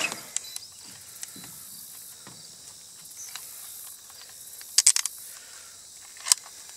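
Sharp clicks of a handheld fish-lip gripper scale being clamped onto a bass's lip: three in quick succession about five seconds in, and one more a second and a half later. A faint steady hiss sits underneath.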